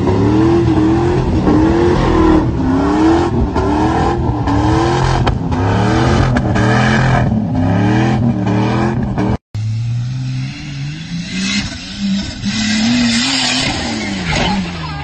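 A pickup's engine revving hard while it churns through sand, its pitch climbing and dropping over and over, about once a second. After a sudden break near the middle, another 4x4's engine runs, revs up in one long rise, then falls away near the end.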